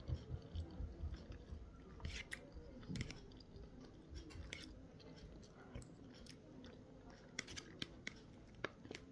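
Soft, close-up chewing of a mouthful of durian sticky rice with coconut cream, low and quiet. Near the end a metal spoon clicks a few times against the plastic takeaway box.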